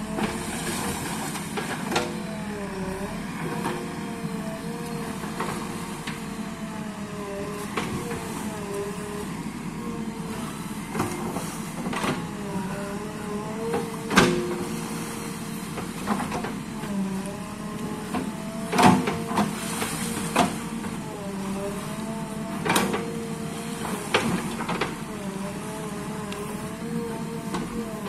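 JCB backhoe loader's diesel engine running steadily while the backhoe arm swings and digs, its tone rising and falling with the hydraulic load. Sharp knocks come now and then.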